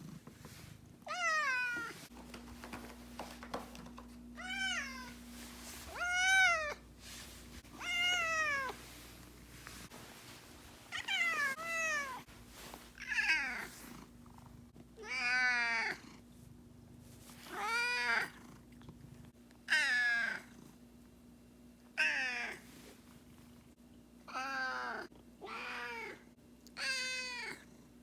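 Domestic cat yowling, a long drawn-out meow about every two seconds, a dozen or so in all, each call sliding down in pitch: the angry, sulking 'siren' of a cat upset at its owner's absence.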